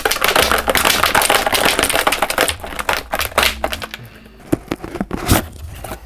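Packaging crinkling and scraping as a boxed computer case fan is worked out of a tight package, densest in the first half, then a few sharp clicks and knocks near the end.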